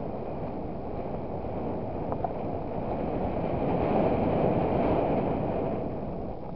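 Vehicle driving on a gravel road: a steady rumble of tyres and engine mixed with wind on the outside-mounted microphone, swelling louder about four seconds in and easing near the end.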